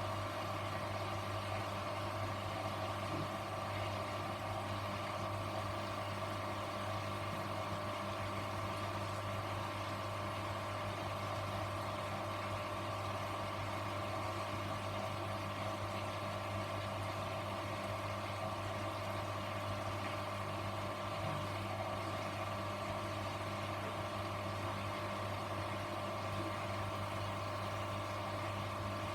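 Grundig washing machine running on its 14-minute quick wash: a steady, even hum with no rise or fall in pitch.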